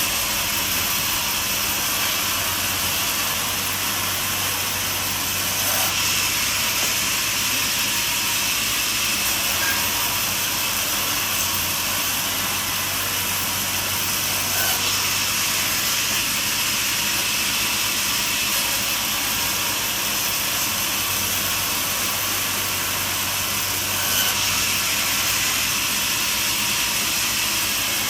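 Portable band sawmill running steadily, its band blade cutting through a log to saw boards, a continuous loud hissing whine with a low hum underneath.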